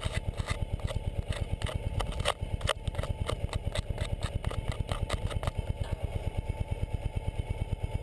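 2009 Ural Patrol's air-cooled boxer-twin engine idling with an even pulse, while a gloved hand wipes snow off the camera housing, scraping and knocking on it for the first five seconds or so.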